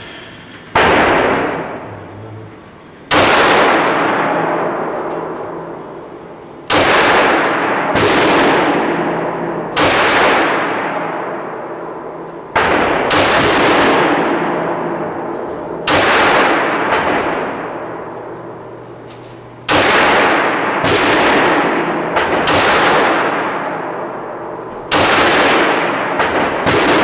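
Series of 9mm pistol shots, about fifteen in all, fired singly at irregular intervals from a fraction of a second to a few seconds apart. Each crack is followed by a long echoing decay inside the indoor range.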